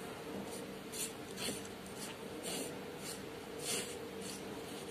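Fingers stirring dry flour seasoned with spice powders on a plate: faint, scratchy rubbing strokes every half second to a second, over a low steady hum.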